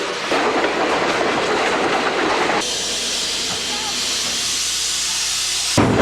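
Steam locomotive venting steam: a steady loud hiss that shifts higher and thinner about two and a half seconds in, then cuts off suddenly near the end.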